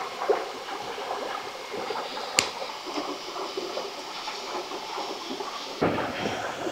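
Light rustling and small clicks of a woven bamboo-strip creel being knotted and handled, with one sharp click about two and a half seconds in, over a steady stream-like rush of water. Near the end the handling gets louder as the basket is lifted and slung on its cord.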